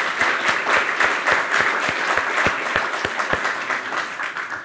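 Audience applauding, a dense patter of many hands, with one nearby pair of hands clapping louder at about three claps a second. The close clapping stops a little past halfway, and the applause dies away near the end.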